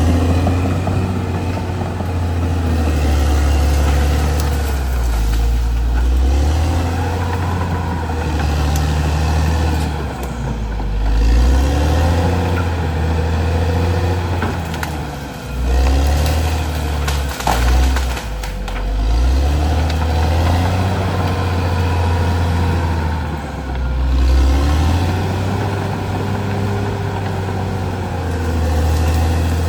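Caterpillar D6R XL bulldozer's diesel engine working under load, swelling and easing every few seconds as the machine pushes. A few sharp knocks come about halfway through.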